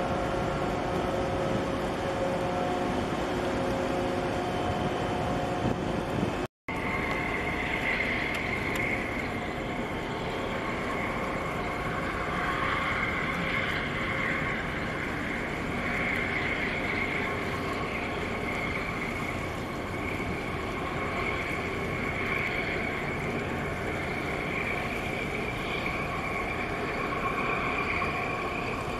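Steady engine drone of a large container ship moving through the harbour, under a constant hiss. The sound drops out for a moment about six and a half seconds in, and the hiss is stronger after that.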